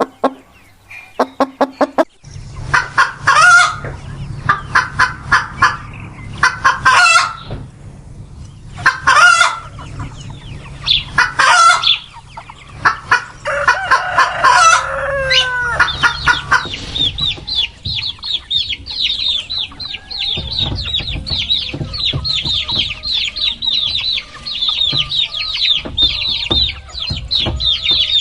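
Hens clucking in loud repeated bursts, with a rooster crowing about halfway through, its call falling at the end. From a little past the middle, a steady run of rapid, high peeping from chicks takes over.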